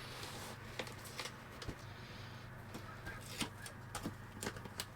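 Faint, irregular clicks and rustles of tape being handled and pressed onto a cardboard mould, over a low steady hum.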